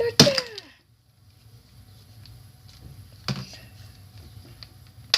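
A short vocal sound falling in pitch at the start, then a hammer knocking on a plastic TV remote about three seconds in and again at the very end, with small ticks of loose pieces in between.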